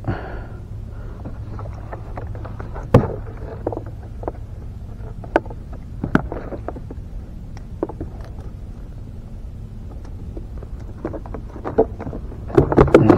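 Steady low rumble with scattered sharp clicks and knocks as a small just-caught fish is handled. Near the end comes a burst of rapid knocks as the fish flips about.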